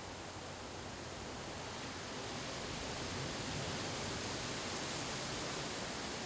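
Windstorm wind rushing as a steady, even hiss that builds slightly about two seconds in.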